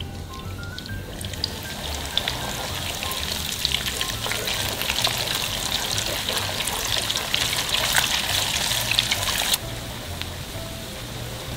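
Beaten egg poured into hot oil in a wok, sizzling and crackling hard as it fries into shreds while a wooden spatula stirs it. The sizzle builds over the first couple of seconds and cuts off suddenly near the end, with light background music throughout.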